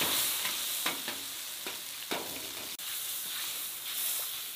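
A large wok of boiling, spicy broth hisses and bubbles as bean sprouts and greens are blanched in it. A metal ladle stirs and clinks against the wok several times.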